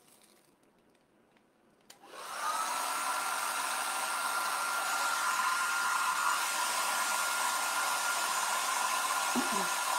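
Hair dryer switched on with a click about two seconds in, then running steadily with a whining tone, drying freshly applied chalk paste.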